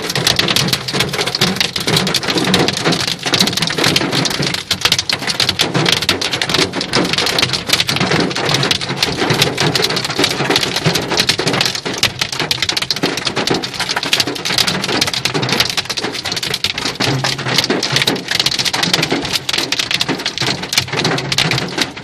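Hail falling with heavy rain: a dense, loud, unbroken clatter of hailstones and raindrops striking hard surfaces.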